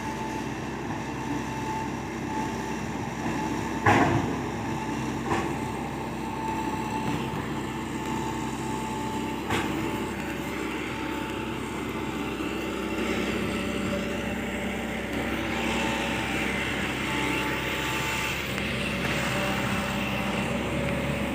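Excavator's diesel engine running steadily, with a sharp metallic knock about four seconds in and two lighter knocks later.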